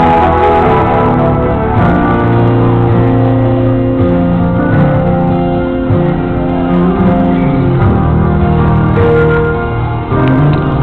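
Music of held keyboard chords in an organ-like sound, the notes sustained and changing every second or so.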